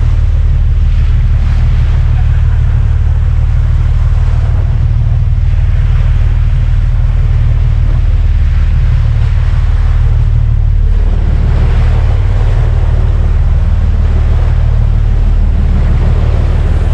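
Strong wind buffeting the microphone over waves washing and splashing against a small fishing boat's hull, under a steady low rumble. The splashing swells a few times, around the middle and again near the end.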